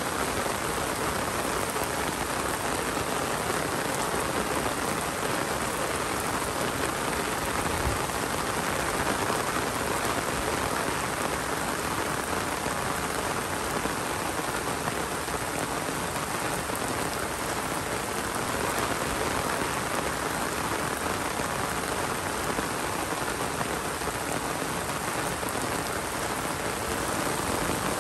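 Steady rain falling: a dense, even hiss of drops that holds at the same level throughout.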